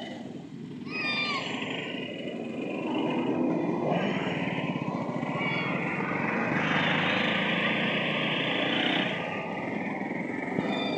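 Street traffic: small engines of auto-rickshaws and a motorbike running close by, with scattered voices.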